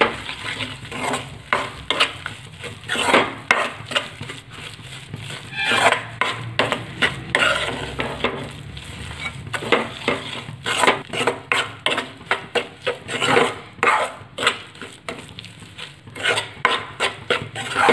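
Metal spatula scraping and knocking against a metal kadhai in quick, irregular strokes as besan and semolina are stirred and roasted in ghee, with sizzling of the ghee underneath.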